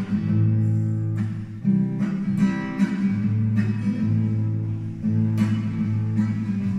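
Classical acoustic guitar played solo: chords strummed about once every half second to second, with low notes ringing on under them.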